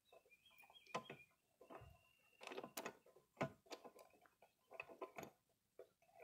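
Scattered faint clicks and light metallic taps from a spark plug socket and extension being turned by hand as a new spark plug is threaded into a small mower engine.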